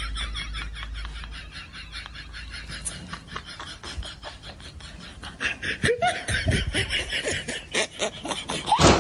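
Human laughter in quick, repeated pulses, growing louder in the last few seconds.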